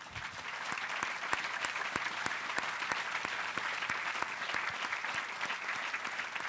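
Audience applauding, building up over the first half second and then holding steady.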